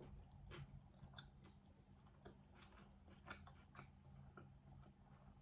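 Faint chewing of a grinder sandwich on a baguette, with soft scattered mouth clicks.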